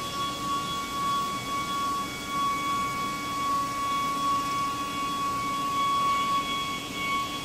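CNC vertical wheel lathe running: a steady high-pitched whine with overtones over an even hiss.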